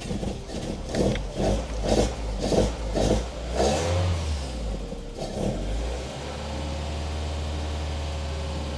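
Toyota 3S-GE BEAMS inline four-cylinder on individual throttle bodies catching on its first start after its cylinders were flooded with fuel. It fires unevenly, surging about twice a second, then settles into a steady run about six seconds in.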